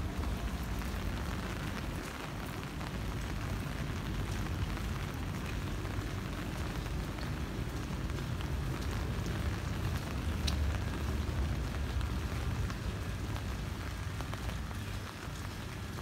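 Steady rain falling on wet pavement, an even hiss with a low rumble underneath.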